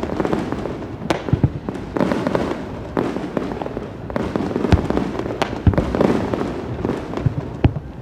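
Fireworks display: aerial shells bursting in a run of sharp bangs at irregular intervals, over a continuous dense din of further bursts.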